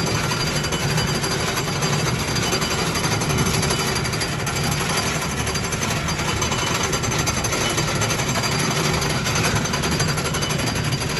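Amusement park ride car running, with a continuous loud rattling rumble from the car and its track.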